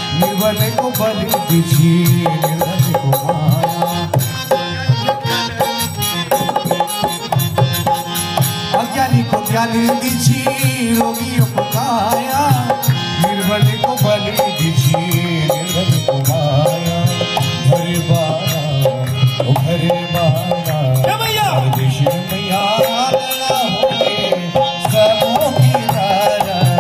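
Live Kumaoni devotional bhajan music: a harmonium plays the melody over a hand drum keeping a steady rhythm.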